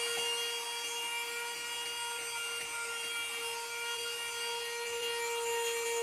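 Portable mini handheld vacuum cleaner running with a steady whine over rushing air as its nozzle is worked over a pedestal fan's metal grille.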